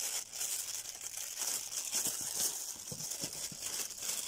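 Clear plastic wrapping crinkling and rustling as a microphone pop filter is unwrapped from its bag, with a few light knocks in the middle.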